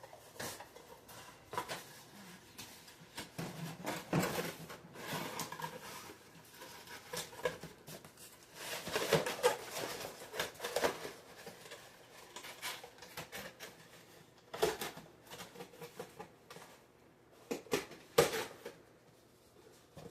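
Rustling, crinkling and clicking of plastic and cardboard toy packaging being handled and opened by hand. The handling is busiest about nine to eleven seconds in, with a few sharp clicks later on.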